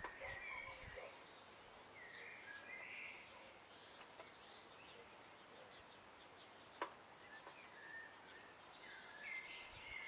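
Near silence: quiet room tone with faint, scattered chirps and a single sharp click about two-thirds of the way through.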